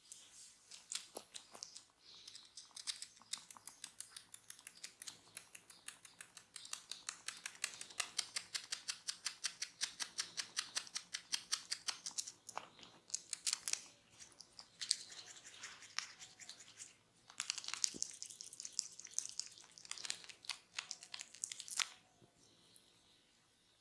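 Hands working fast over skin and hair in a massage, heard close up: a quick run of crisp crackling rubs and pats, about five a second at its busiest, with short breaks before it stops near the end.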